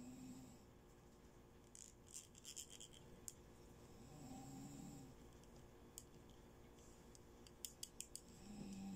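Faint clicks and light taps of hard plastic toy bangles handled in the fingers: a short cluster about two seconds in, single clicks a little later, and a quick run of clicks near the end.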